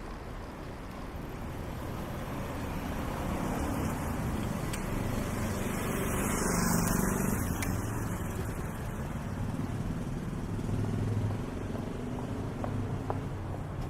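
Street traffic: a motor vehicle passing close by, growing louder to a peak about halfway through and then fading, over a steady hum of city noise.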